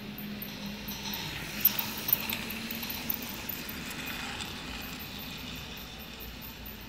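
Toy train's plastic wagons rolling along plastic track, a rattling clatter that swells for a few seconds as the cars pass close, with a few sharp clicks. A steady low hum runs underneath.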